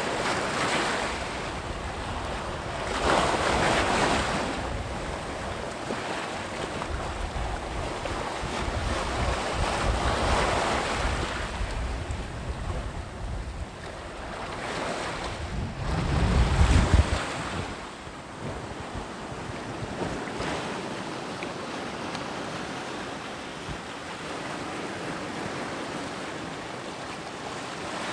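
Sea waves breaking and washing ashore, swelling in several surges, with wind buffeting the microphone, heaviest about two thirds of the way through.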